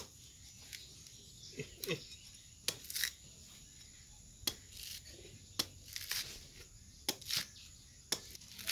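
Knife blade chopping into a coconut's husk: about a dozen sharp, irregular strokes, some followed by a short tearing of husk fibre as it is pried loose.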